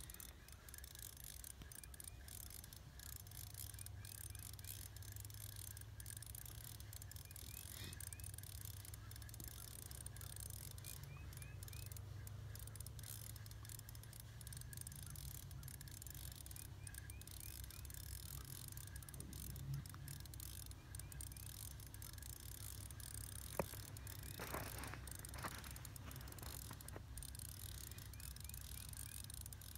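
Ice-fishing reel clicking faintly in short spells as a hooked fish is played on the line, over a low steady rumble, with one sharper click near the end.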